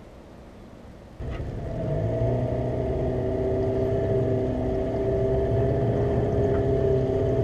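Boat motor starting up about a second in and then running steadily, building a little over the next second.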